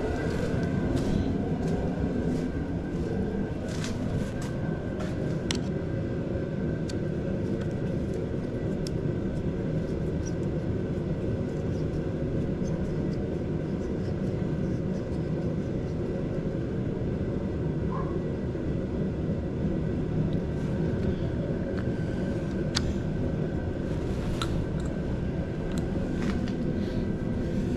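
Steady low rumble with a faint steady whine over it, broken by a few sharp clicks and clinks of small parts and tools being handled.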